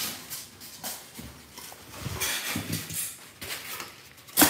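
Packing paper and a cardboard shipping box rustling and crinkling as they are handled and dug through, in irregular bursts, with one sharp knock about four seconds in.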